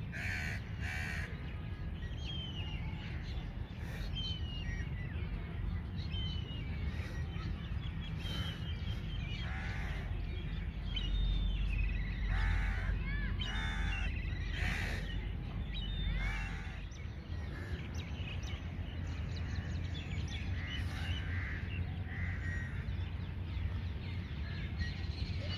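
Crows cawing again and again, busiest in the middle stretch, with smaller birds chirping and a steady low rumble underneath.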